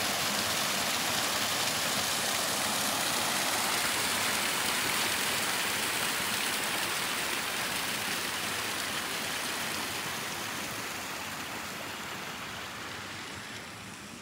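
Rushing water of a small stream cascading over rocks, a steady rush that fades over the last few seconds.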